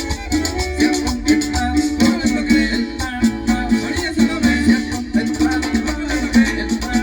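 Chanchona band playing an upbeat Latin dance tune: string melody and guitar over a bass line, kept in time by a steady shaker rhythm.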